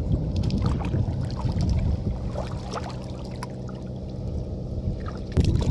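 A low, steady engine drone runs throughout, with small splashes and drips of water as a monofilament gill net is lifted and fish are picked from it in shallow river water.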